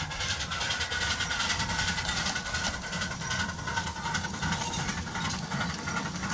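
A Tinkerbell-class 7¼-inch gauge miniature steam locomotive running past with its passenger carriages: a steady low rumble with dense rapid clicking on top.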